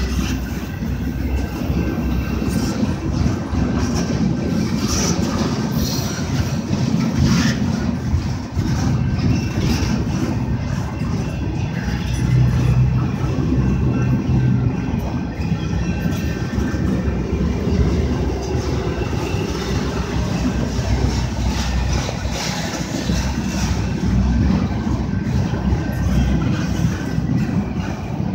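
Canadian Pacific freight train's double-stacked container well cars rolling past at speed: a steady rumble and clatter of steel wheels on the rails.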